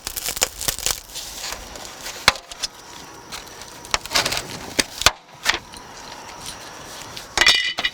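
Plastic interior trim clips and panels being pried and pulled loose, an uneven series of sharp clicks and knocks.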